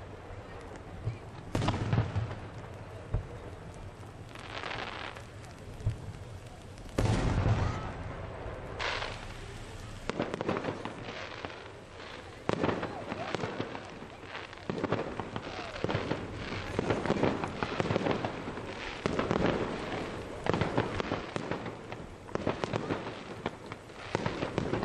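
Aerial firework shells bursting. Two heavy booms come about two and seven seconds in, then from about twelve seconds a rapid run of smaller bursts and crackling.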